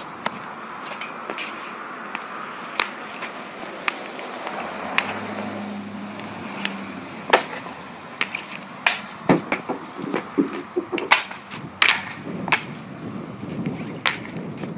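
Hockey pucks being shot on an asphalt driveway: a run of sharp cracks and clacks from stick on puck and from pucks hitting the net frame and pavement. The cracks come a few at a time at first, then thick and fast in the second half.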